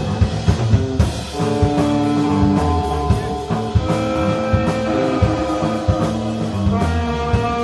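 Live instrumental rock from a guitar, bass and drums trio: sustained, overdriven guitar notes that change every half-second or so over bass and a busy drum kit, with frequent cymbal and snare hits.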